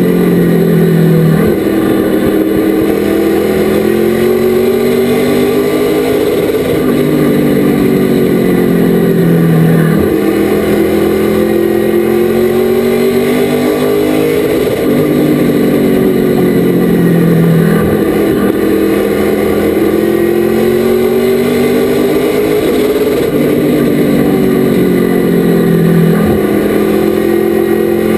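Race truck engine running hard under racing, its pitch climbing steadily and then dropping off sharply, about six times over and over, as it lifts and accelerates lap after lap.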